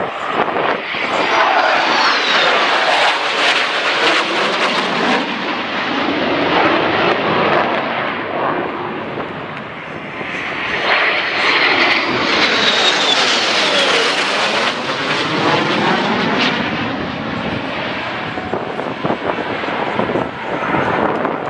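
Jet engines of a formation of military jets (F-35A, F-22, F-16 and A-10C) passing overhead: a loud, rushing roar with a whine that falls in pitch. It eases about ten seconds in, then swells again as the formation comes past once more.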